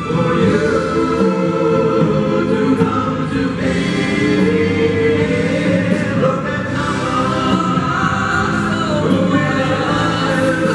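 Live band music: two men singing together into microphones over electric bass guitar and drums.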